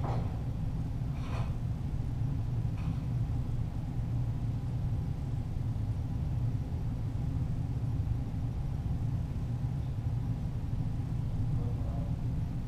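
Steady low rumble, with three faint sharp clicks about a second and a half apart in the first three seconds.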